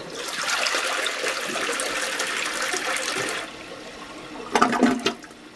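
Toilet flushing: a rush of water for about three and a half seconds that drops suddenly to a quieter steady refill hiss. A brief loud pitched sound comes near the end.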